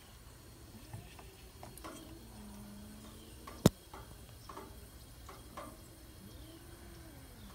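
Two barn cats in a standoff before a fight, making low, drawn-out moaning yowls that rise and fall in pitch, one held on a steady note for about a second. A single sharp click a little past the middle is the loudest sound, with faint scattered ticks around it.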